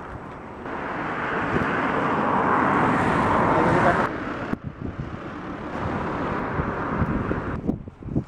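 A van driving on a snowy road close by, its engine and tyre noise swelling over about three seconds and cutting off abruptly, then a quieter steady run that fades near the end, with wind on the microphone.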